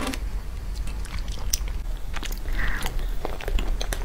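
Close-miked chewing of soft, creamy mille crêpe cake: many small, wet mouth clicks and smacks, over a low steady hum.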